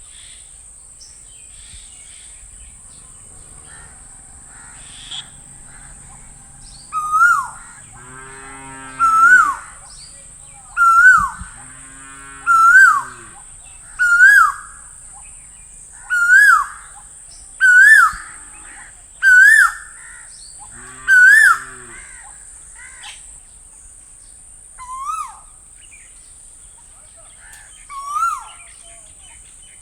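Asian koel calling: a run of nine loud, rising, hooked notes about every second and a half, then two fainter ones near the end.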